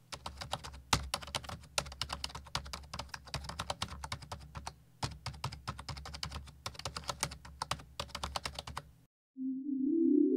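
Rapid computer-keyboard typing clicks over a low hum, a typing sound effect, with a short break about halfway and stopping about a second before the end. A rising synthesized tone follows in the last second.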